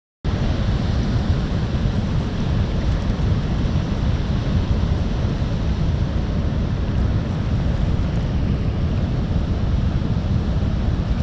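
Wind buffeting the microphone: a steady, rough rushing rumble, heaviest in the bass, cutting in suddenly just after the start.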